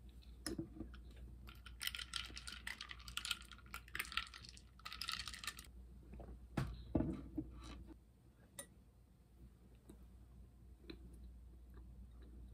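Ice cubes clinking and rattling in a glass of iced latte as it is stirred with a fork, a dense run of small clicks lasting about four seconds, followed by a few scattered knocks and clicks.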